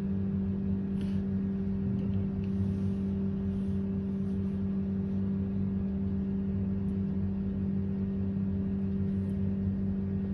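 Steady low machine hum, unchanging throughout, with a few faint light ticks.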